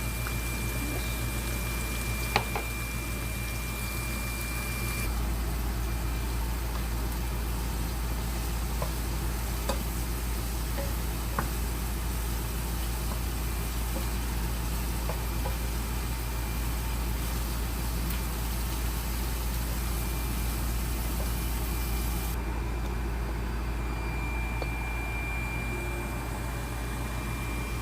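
Steady hiss of food cooking on a stove over a constant low hum, with a few light clicks of utensils.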